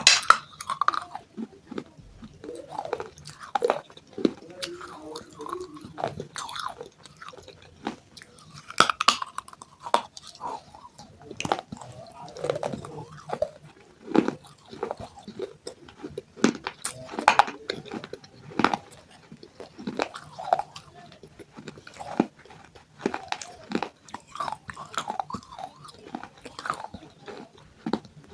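Close-up crunching and chewing of pieces of broken baked clay pot, with many irregular sharp crunches.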